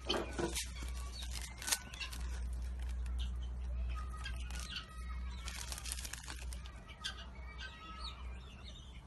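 Plastic snack packet crinkling and rustling in irregular bursts as a caged monkey handles it, with small birds chirping in the background.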